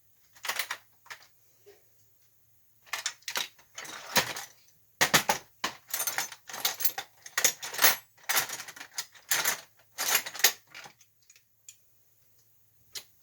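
Loose metal hand tools, such as punches and drifts, clinking and rattling against one another in a run of irregular clinks. The clinks come thickest in the middle and later part.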